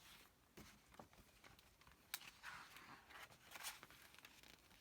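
Near silence, with a few faint soft clicks and brief paper-like rustles from a picture book being handled between read-aloud verses.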